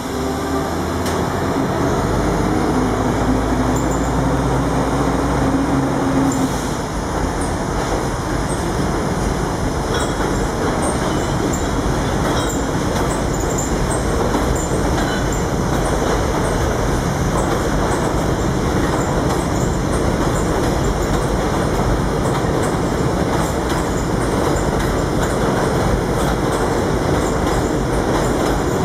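New York City Subway R68A train running past on elevated track, a continuous rumble of steel wheels on rail. A steady low hum sits under it for the first six seconds or so, then fades into the wheel noise.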